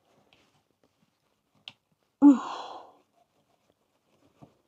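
A woman's sigh, voiced at first with a falling pitch and trailing off into breath, about two seconds in; a faint click comes just before it and another near the end.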